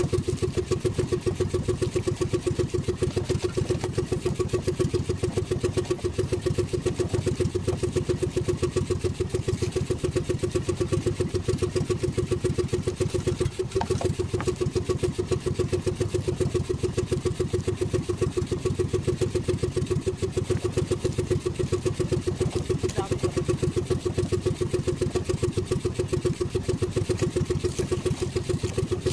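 Outrigger fishing boat's engine idling with a fast, even chugging.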